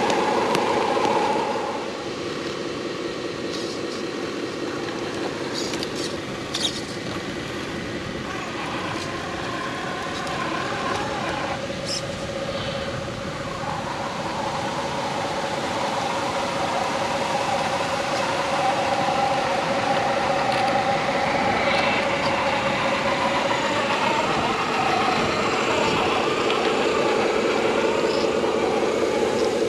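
RC 8x8 scale truck running steadily, an even engine-like drone that eases off about two seconds in and builds again later, with a few light clicks.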